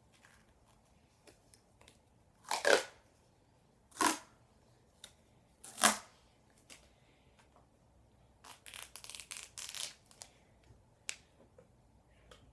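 Duct tape ripped off the roll in three short, loud tears, then a longer crackling pull of tape unwinding about a second and a half long near the end.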